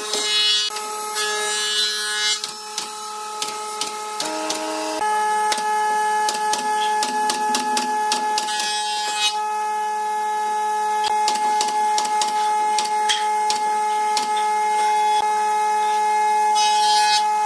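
A small electric power tool's motor running with a steady whine, with many sharp clicks and taps over it. The pitch shifts briefly about four seconds in, then holds steady.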